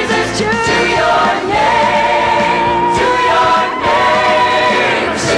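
Gospel choir singing with instrumental backing, with one long held note in the middle.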